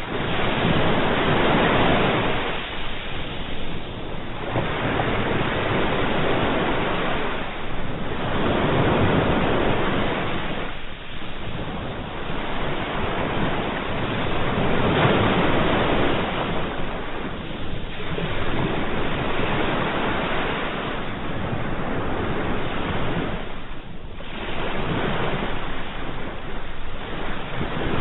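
Sea waves breaking and washing in, the surf swelling and falling away every three to four seconds.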